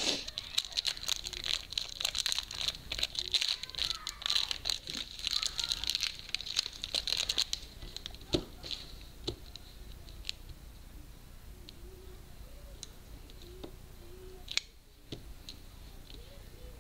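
Plastic wrapper of a new block of white polymer clay crinkling and tearing as it is opened, for about the first seven seconds. After that, scattered light clicks and taps as the clay block is handled.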